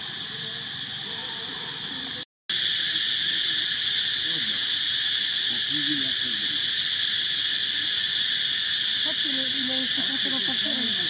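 Steady high-pitched drone of an insect chorus, unchanging in pitch. It cuts out for a moment about two seconds in and comes back louder.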